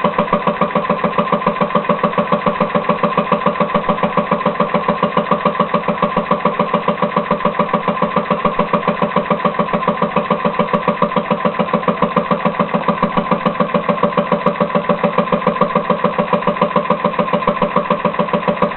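Leaf blower engine converted to a compressed-air motor, running steadily on its timed air valve, with an even rhythm of about four to five puffs a second.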